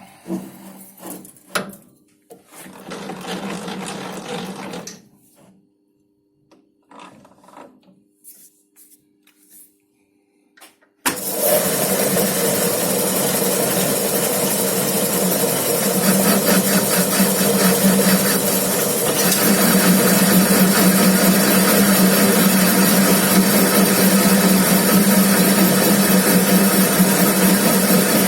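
Homemade metal lathe: a few knocks and handling sounds with pauses, then about eleven seconds in the machine starts abruptly and runs loudly and steadily with a strong low hum.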